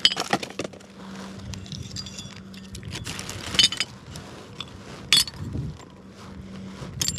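Plastic trash bag crinkling as litter is handled into it, with several sharp clinks of broken glass bottle pieces knocking together.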